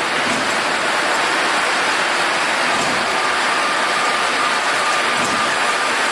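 Polishing machine working metal generator parts with a steady, loud hiss, and a faint steady whine joining about three seconds in.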